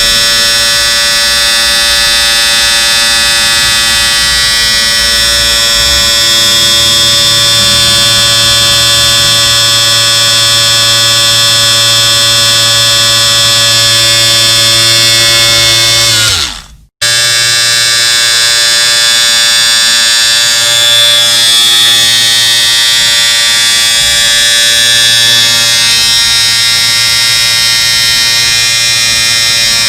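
Electric shaver motor running with a steady, loud buzz. About sixteen seconds in, its pitch drops as it winds down and it falls silent for a moment, then it starts buzzing again.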